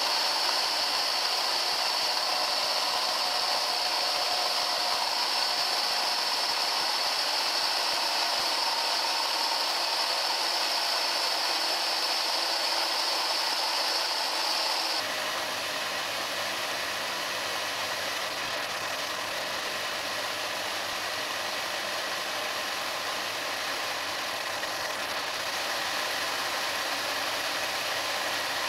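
Eight 12 V 775-type DC motors driving a 3D-printed ABS gearbox (overall ratio 1:2187) while it winds up a load of about 44 kg. It runs as a steady high whine with rattling gear noise. About halfway through the tone changes abruptly and the sound gets slightly quieter.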